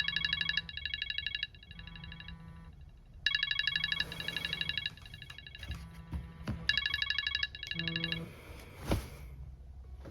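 A phone ringtone or alarm ringing: a rapid, high-pitched electronic trill that sounds in bursts, repeating about every three seconds. A short whoosh comes near the end.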